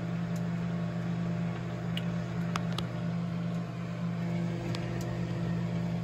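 GoldStar microwave oven running with a steady low hum. A few faint crackles and ticks come from a bag of microwave pork rinds puffing up inside.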